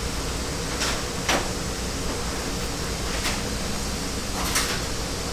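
Zipper stops being worked off a zipper tape: four short clicks and scrapes, about a second in, shortly after, past halfway and near the end, over a steady background hum.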